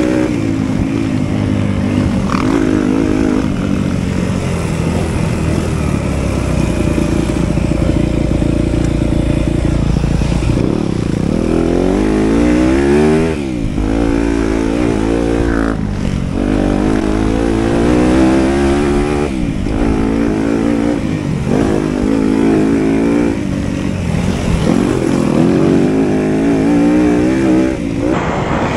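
250cc four-stroke single-cylinder motocross bike ridden hard on track: the engine revs up and falls off again and again, with short throttle chops every few seconds as it shifts and brakes into turns.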